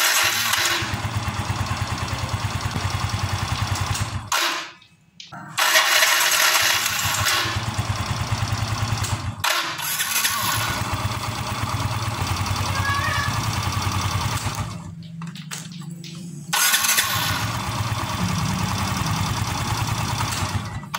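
A Yamaha Mio M3 scooter engine run in several stretches of a few seconds each, with short breaks between them where it is stopped and started again. It carries a rough, snoring 'ngorok' noise, which the mechanic traces to the starter dynamo rather than to the engine itself.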